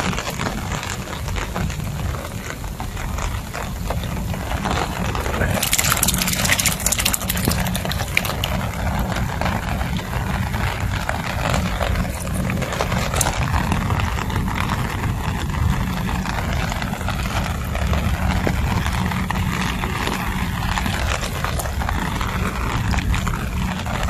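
Heavy rain falling, a steady hiss over a strong low rumble, with a louder burst of hiss for about a second around six seconds in.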